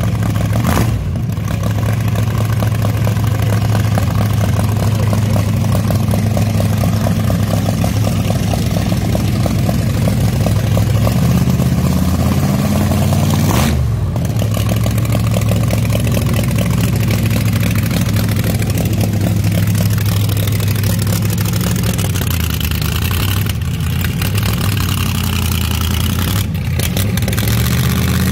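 Vintage dragster engine running loudly at a steady idle, with a brief rev about halfway; the sound breaks off abruptly twice where recordings are joined.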